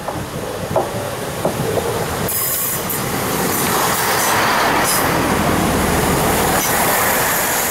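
Chiltern Railways Class 165 diesel multiple unit running along the platform, a loud steady rumble of wheels on rail with a few sharp clacks over the rail joints early on.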